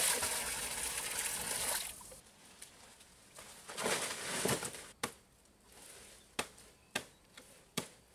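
Water poured from a pot splashing into a shallow stone-lined pond for about two seconds. Later a rustle and several sharp clicks as banana trunks are handled.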